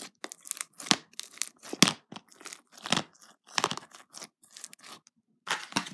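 Pink slime packed with small white beads being squeezed and poked by hand in a plastic tub, giving a run of short, irregular crackles and pops.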